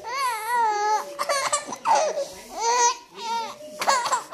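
Baby laughing and squealing in a string of high-pitched vocal bursts, about six in all, the first a drawn-out squeal of about a second.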